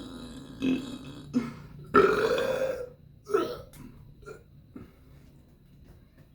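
A person burping: two short burps in the first second and a half, then a long, loud burp about two seconds in that rises in pitch and lasts nearly a second, and a shorter one a second later. Only faint small clicks follow.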